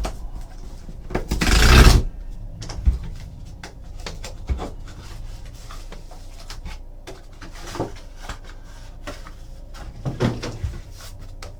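Hands opening and handling a trading-card box and its packaging: a loud rustling burst lasting under a second about one and a half seconds in, then scattered light knocks and rustles.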